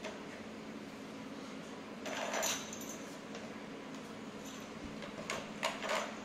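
Brief rustles of hands handling and pulling apart frayed ribbon, one about two seconds in and a few shorter ones near the end, over a steady low hum.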